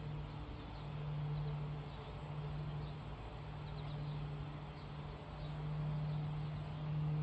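Outdoor ambience: a low motor hum that swells and fades every couple of seconds, with faint bird chirps.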